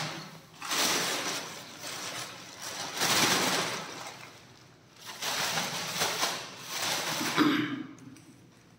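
Thin plastic carry bag rustling and crinkling as it is shaken and pawed by a kitten, in two long spells with a short lull in the middle.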